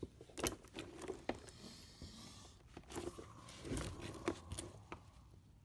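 Small pieces of scrap metal being handled and sorted by hand: scattered clinks and knocks, with crinkly rustling in between, including a longer rustle about two seconds in.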